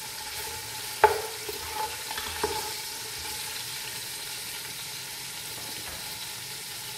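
Oil sizzling gently over a low flame with cumin seeds, fenugreek seeds and chopped garlic frying in it. A spatula stirs the oil and knocks against the pot a few times in the first three seconds, each knock with a short ring.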